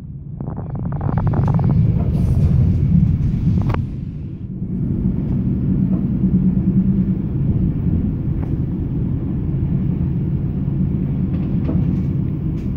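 Steady low rumble of a passenger train running along the track, heard from inside the carriage. A burst of rustling and a single sharp click come in the first four seconds.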